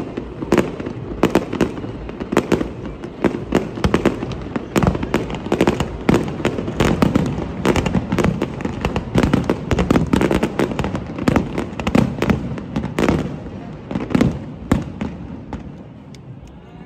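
Fireworks display: aerial shells bursting in quick succession, several loud bangs a second. This is the closing barrage, and it thins out and fades near the end.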